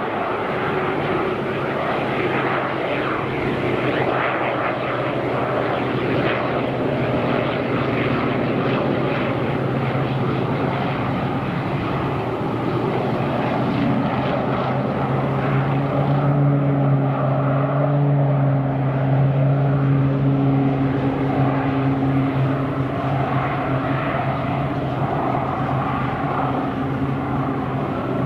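Air Tractor AT-802 Fire Boss turboprop engine and propeller running steadily as the floatplane skims the lake scooping water. A steady low hum grows louder about halfway through.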